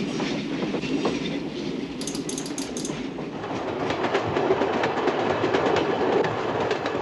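A train running over the rails, its wheels clattering over rail joints and points in a steady rumble that grows louder about halfway through.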